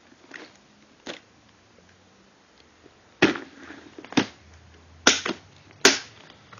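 Handling noise from a clear plastic storage case of bagged toy cars: a couple of faint taps, then four loud, sharp knocks and clatters in the second half, the first followed by a brief rustle.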